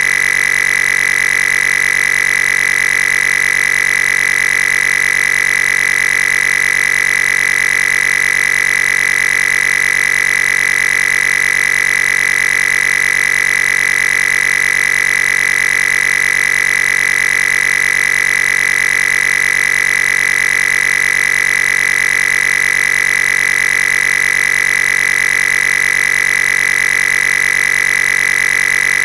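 Loud, steady electronic buzz with a strong high tone, unchanging throughout.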